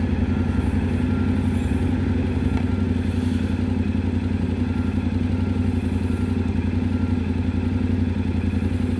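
Yamaha Ténéré 700's 689 cc parallel-twin engine running steadily at an even, unchanging speed.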